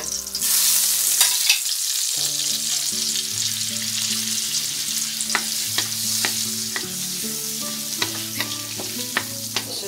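Butter sizzling as it hits a hot oiled wok, the hiss jumping up about half a second in and then settling into steady frying. A wooden spatula stirs the melting butter, tapping the pan now and then.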